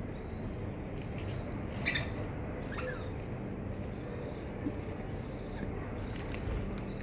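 Pet budgies giving short, faint chirps every second or so, with one sharper chirp about two seconds in.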